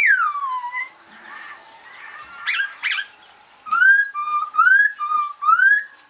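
Caged black songbird whistling: a loud note gliding down at the start, two short rough calls about halfway, then a quick run of rising whistles alternating with level notes near the end.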